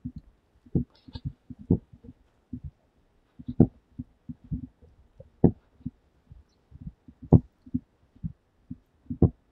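Footsteps while walking, heard as irregular low thumps about once or twice a second, along with bumps of the handheld microphone as it jostles.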